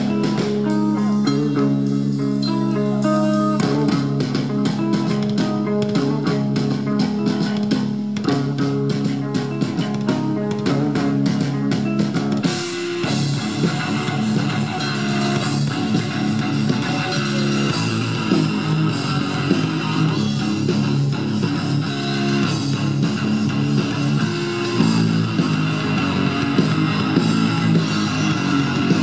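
Rock band playing live: electric guitar and bass guitar over a steady beat, the arrangement growing fuller about twelve seconds in.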